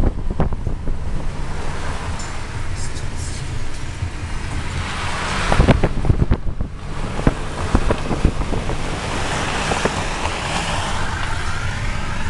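Road and wind noise inside a moving car: a steady low rumble with wind buffeting the microphone, and a few sharp knocks, most of them about halfway through.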